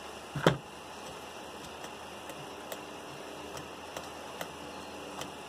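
Hard plastic parts of an LED fog light being handled as the adjuster is fitted into the housing: one sharper knock about half a second in, then scattered light plastic clicks.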